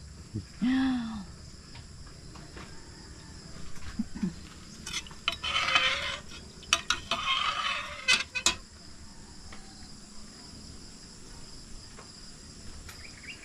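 Metal ladle stirring and scraping inside a stainless steel pot of liquid, with a few sharp clinks of metal on metal, from about five to eight and a half seconds in. Steady high insect chirring runs underneath, and a brief voice is heard about a second in.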